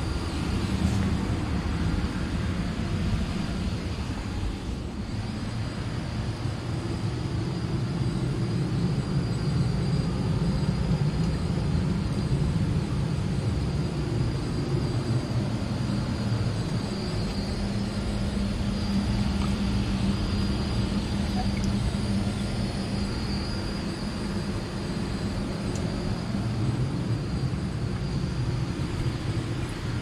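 Gas furnace running with a steady low rumble, plus a faint steady high whine.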